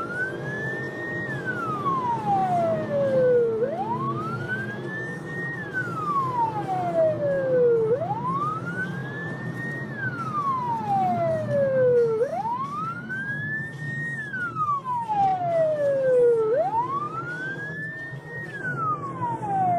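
Police car siren wailing: each cycle climbs quickly, then falls slowly, repeating about every four seconds, over steady car engine and road noise.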